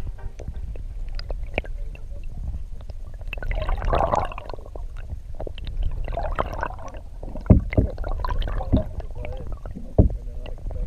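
Water sloshing and gurgling around a canoe being paddled, over a steady low rumble, with a few sharp knocks in the second half.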